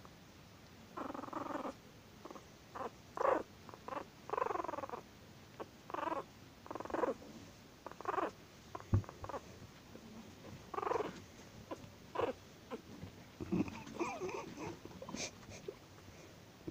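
Tiny chihuahua puppy growling and yipping angrily in short, irregular bursts as it is handled, with a single soft knock about nine seconds in.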